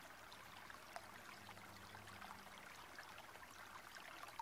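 Near silence: a faint steady hiss of background noise with a few soft ticks.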